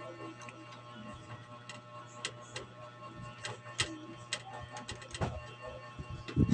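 Irregular small clicks and taps of hardware being handled and fitted into a metal PC case, over a steady low hum, with a louder thump near the end.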